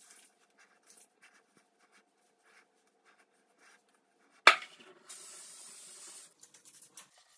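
Faint rubbing of hands working through hair, then a sharp click about four and a half seconds in and an aerosol hairspray can hissing steadily for about a second.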